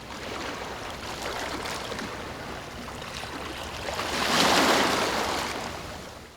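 Rushing water noise, steady at first, then swelling to its loudest about four and a half seconds in and fading away.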